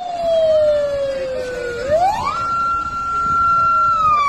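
Police escort vehicle's siren wailing over passing traffic. The tone falls slowly, sweeps up sharply about two seconds in, holds high for over a second, then begins to fall again near the end.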